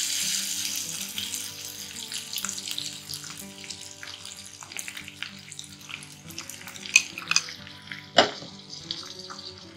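Coarsely ground soaked rice sizzling in hot desi ghee in a pan, loudest at first and dying down over several seconds. A few clicks of a spoon stirring, the sharpest about eight seconds in.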